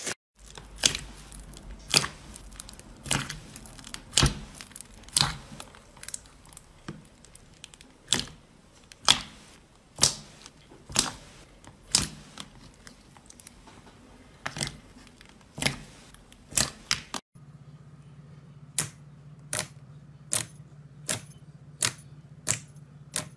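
Slime being pressed and squeezed by hand, giving crisp popping clicks about once a second. After a break about three quarters of the way through, a white slime pops more quickly, roughly every two-thirds of a second.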